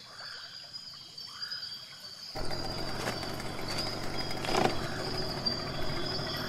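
Tropical riverside ambience: a steady high drone of insects, with a few short rising-and-falling calls in the first two seconds. About two seconds in, the background jumps abruptly to a louder, fuller noise with a couple of sharp knocks.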